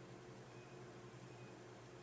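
Near silence: steady room tone of faint hiss and a low electrical hum.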